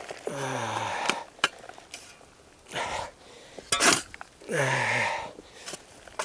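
A man's breathy groans, twice, each falling in pitch. Between them come shorter breathy bursts and a few sharp clicks or knocks.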